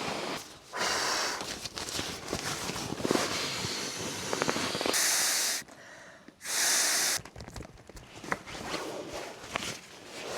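Sleeping gear being handled and unpacked: irregular rustling and crinkling of fabric and bags, with two short, loud hissing whooshes about five and seven seconds in.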